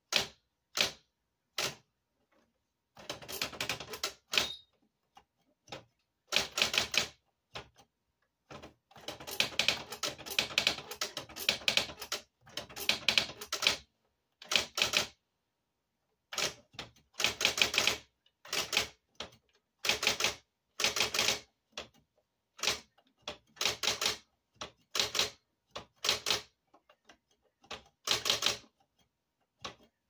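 Electric typewriter being typed on: fast runs of sharp key strikes in bursts of a second or two, broken by short pauses.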